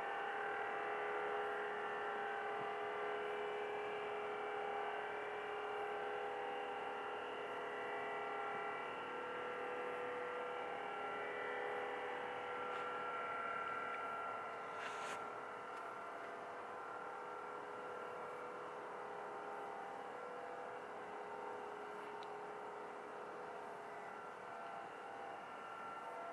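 Unexplained steady droning hum made of several held tones at once, slowly fading, with a single sharp click about fifteen seconds in.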